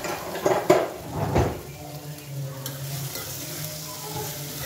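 Sliced onions sizzling in hot oil in an aluminium kadai, being sautéed until they turn pink. A few loud knocks and clatters come in the first second and a half, and a spatula stirs the onions near the end.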